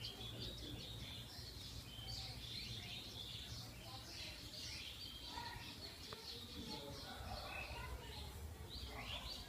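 Small birds chirping and twittering continuously, with a steady low rumble underneath.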